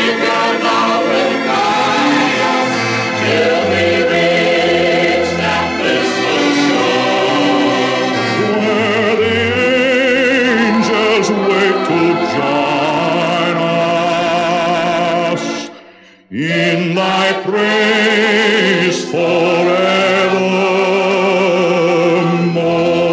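Choir singing a slow gospel hymn passage over musical accompaniment, with no solo words. The sound drops away briefly about sixteen seconds in, then resumes.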